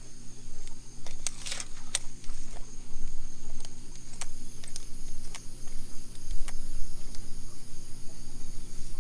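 Evening outdoor ambience: a steady high-pitched insect chirring, with scattered sharp clicks and a low hum underneath.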